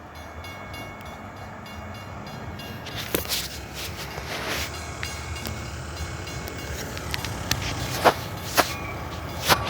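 Metra commuter train approaching, its rumble growing steadily louder, with a few sharp clicks in the second half.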